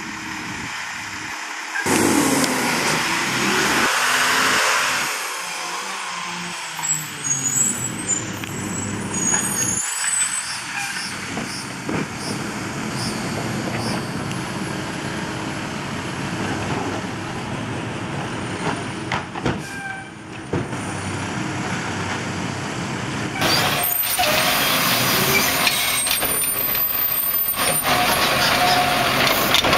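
Automated side-loader garbage trucks running on diesel, with a loud air-brake hiss about two seconds in. About 23 seconds in, a second truck's engine takes over, louder.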